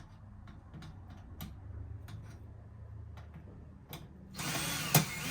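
Faint clicks of handling, then about four seconds in a power drill runs in a short, loud burst with a whine that rises and falls, backing screws out of a small melting furnace's heat shield.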